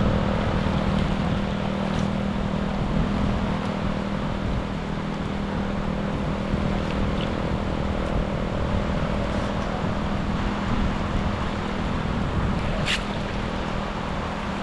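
Steady rush of water with a low steady hum under it that fades in the middle, and one sharp click near the end.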